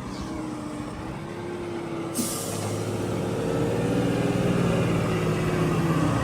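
Mahindra tractor's diesel engine running and growing louder from about three seconds in. A sudden sharp hiss of released air cuts in about two seconds in and fades over a second.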